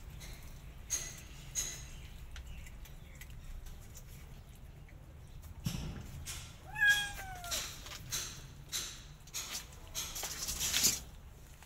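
Kitten meowing: faint high squeaks about a second in, then one clear meow about seven seconds in that falls in pitch. Around it, a run of short scrapes and clicks from claws on the board it is trying to climb, the loudest near the end.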